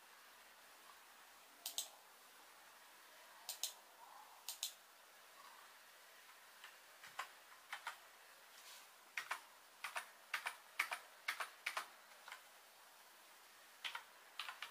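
Faint clicks from a Rii RK200 wireless mouse and keyboard: a few paired clicks in the first seconds, then single keystrokes at a slow, uneven pace from about seven seconds in. The keys make only a light, not very noisy click.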